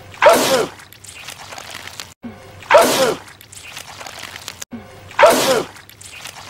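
A man's wet sneeze from a film soundtrack, looped: the same loud sneeze comes three times about two and a half seconds apart, each starting just after an abrupt cut, with quieter sound in between.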